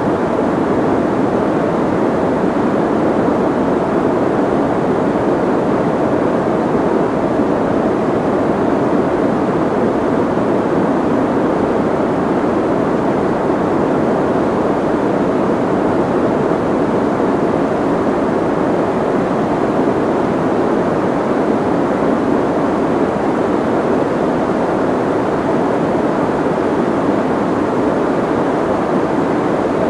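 Steady soft noise with its energy in the low-mids and the highs rolled off, a muffled hiss like a distant rumble with no changes or events: a generated sleep-noise track.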